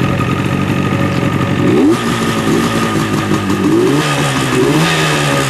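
1975 Yamaha RD250's two-stroke twin engine running at idle, with the throttle blipped three times, the pitch rising quickly about two seconds in, again near four seconds and once more shortly after.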